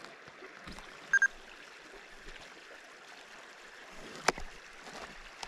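Small river flowing steadily, a soft even rush of water. About a second in come two brief high-pitched pips, and a little after four seconds one sharp click.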